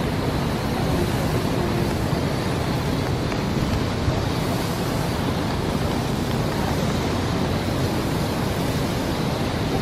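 A garden hose spraying water onto an elephant's wet hide, with runoff splashing onto the concrete floor: a steady hiss.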